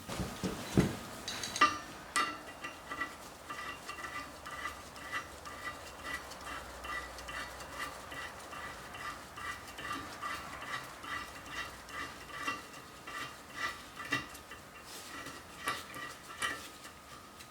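A tap being turned to clean the metric M10×1.5 threads in the blind bolt holes of a wood chipper's steel drum. It makes a steady rhythm of small metallic clicks and scrapes, about one or two a second, each with a faint ring.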